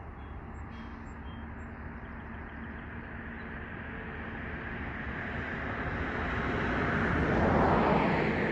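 A vehicle approaching and passing close by: its noise builds over several seconds to a peak near the end, then falls away.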